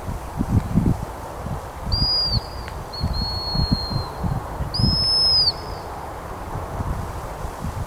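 A handler's gundog whistle blown in several steady high blasts, a short pip and then longer notes, between about two and five and a half seconds in. Wind buffets the microphone throughout.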